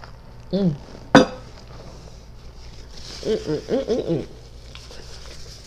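A woman eating a toasted BLT sandwich: a short hum about half a second in and a sharp click about a second in, then a run of closed-mouth 'mm-mm' hums of enjoyment at about three to four seconds.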